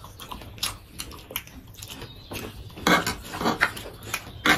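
Eating at a table: forks and chopsticks clicking and scraping on plates and a tray, with chewing, in a run of short sharp clicks that get louder and busier about three seconds in.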